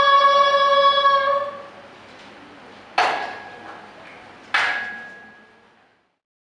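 Women's choir singing unaccompanied, holding one long final note that dies away about a second and a half in. Then two sharp strikes with a short ringing tail, about a second and a half apart, each fading out.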